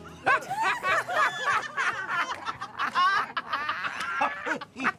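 Several people laughing and snickering together, voices overlapping.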